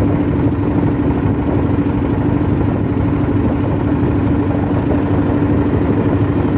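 Wooden river boat's engine running steadily: a constant drone with one steady hum.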